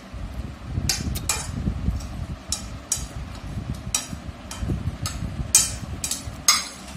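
A metal spoon clinking and scraping against a ceramic plate in a series of sharp, irregular clinks, the two loudest near the end, with close chewing underneath.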